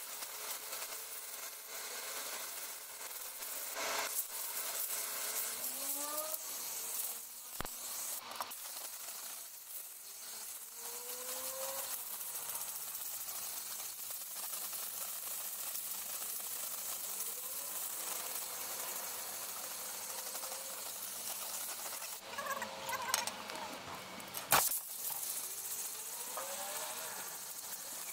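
Compressed-air blow gun hissing steadily as it blows packed dirt and clay out of the fins of a clogged ATV radiator, with a few sharp knocks, the loudest about 24 seconds in.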